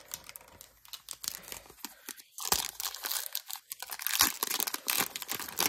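Foil wrapper of an Upper Deck hockey card pack crinkling and being torn open: sparse crackles at first, growing into a dense run of crackling about halfway through.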